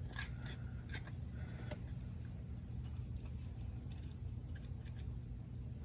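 Light metallic clicks and taps, irregular and scattered, from shims and parts being handled during work inside a Ford 8.8 differential housing, over a steady low hum.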